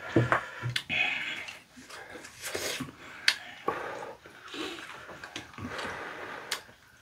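Two people eating tteokbokki: chewing and slurping of chewy rice cakes in spicy sauce, with a few sharp clicks of chopsticks against ceramic bowls.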